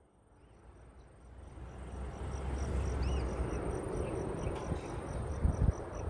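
Open-air ambience fading in about a second in: a steady rushing noise with low wind rumble on the microphone, and faint insect chirping repeating about four times a second.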